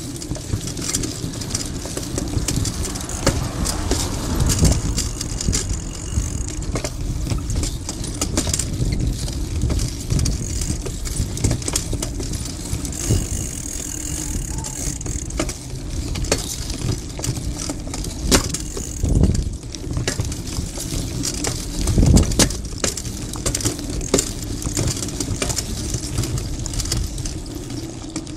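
A bicycle ridden over a paving-slab footpath: a steady low rumble and hum from the ride, with constant small clicks and rattles from the bike as it jolts over the slab joints, and two heavier knocks about two-thirds of the way through.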